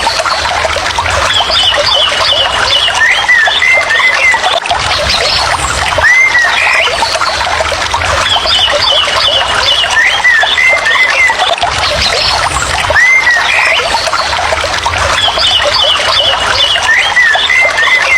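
Steady rain falling, with a bird calling over it: short hooked whistles and a quick run of higher notes that recur about every six and a half seconds.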